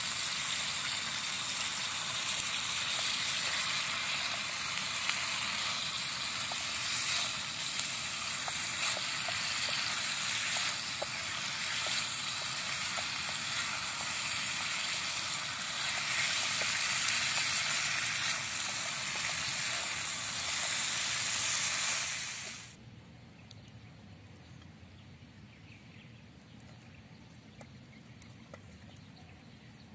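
Chicken feet frying in a thick annatto sauce in a wok over a wood fire: a steady sizzle with small pops. The sizzle cuts off suddenly about two-thirds of the way through, leaving only a faint background.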